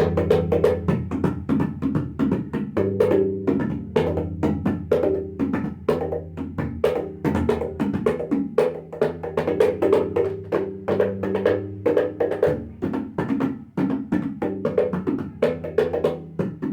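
Bayan, the bass drum of a tabla pair, played in a fast, steady run of strokes, about five a second. Low, ringing bass tones sound under the strokes and shift in pitch as the palm presses and slides on the drumhead.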